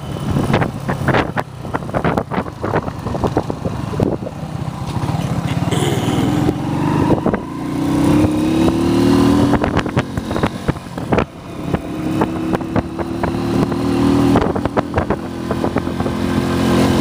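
Motorcycle taxi engine running under the rider, its pitch rising as it speeds up about seven seconds in and again about twelve seconds in, with frequent short knocks and buffets throughout from the ride over a rough dirt road.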